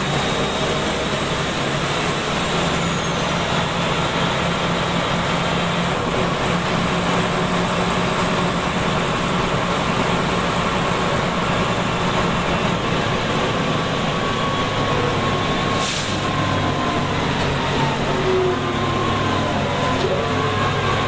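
Scania DS9 9-litre six-cylinder turbo diesel of a bus running under way, heard from inside the passenger cabin over road noise. A short air hiss comes about three-quarters of the way through. Near the end a whine falls in pitch.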